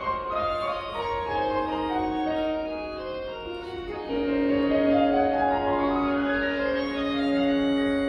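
Orchestral ballet music: a melody steps downward, then about four seconds in a low note is held and grows louder while a line of notes climbs above it.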